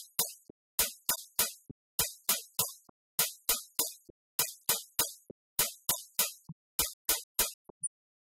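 Sparse electronic background music: short, sharp drum-machine hits, about three or four a second, with silence between them.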